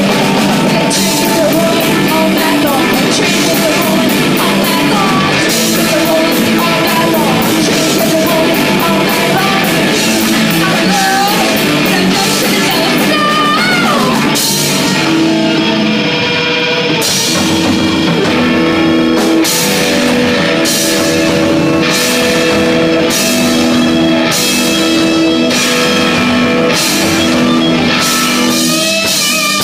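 Rock music with electric guitar, drum kit and singing. About halfway the cymbals drop out for a moment, then the drums come back with a crash about once a second over held guitar notes.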